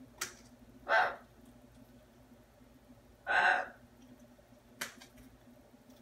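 Blue-and-gold macaw making three short vocal sounds, the longest and loudest a little past halfway, with a brief click near the end.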